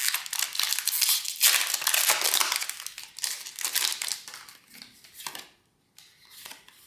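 Foil wrapper of a Pokémon trading-card booster pack crinkling as it is opened by hand. The crinkling stops about five and a half seconds in, leaving a few faint rustles.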